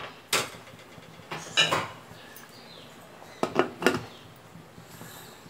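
Aluminium pressure cooker lid clanking against the pot as it is set on and closed: sharp metal knocks in three groups, one just after the start, a pair about a second and a half in, and a quick cluster near four seconds.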